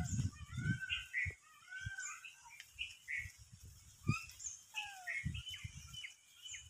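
Small birds chirping and twittering over and over, with a few soft low thumps and rustles.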